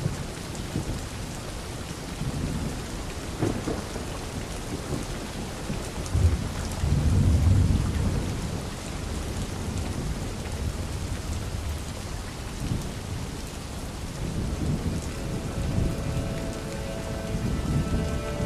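Steady rain with low rolls of thunder. The loudest rumble comes about six seconds in and lasts a couple of seconds.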